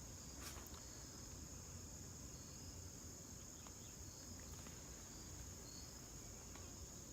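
Faint, steady high-pitched chirring of crickets outdoors, with a couple of soft clicks.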